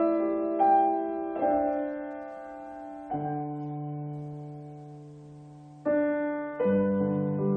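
Slow, gentle solo piano music: chords struck and left to ring out, one held and fading for about three seconds before the next chords come in.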